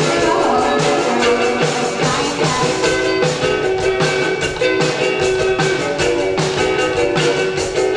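Live rock music from a drum kit and keyboard, the drums keeping a steady beat under sustained chords.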